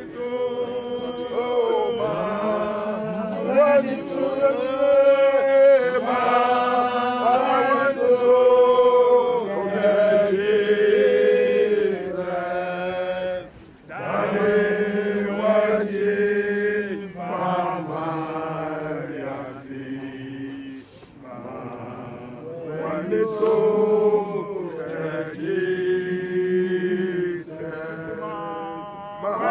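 A group of voices singing a slow hymn in long held notes, with short pauses between phrases.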